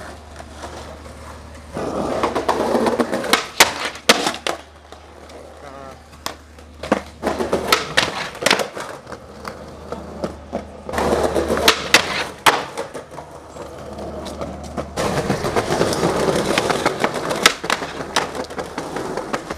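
Skateboard wheels rolling on concrete, broken by sharp clacks of tail pops, the board striking a wooden wall, and landings, over several passes. A steady low hum runs underneath.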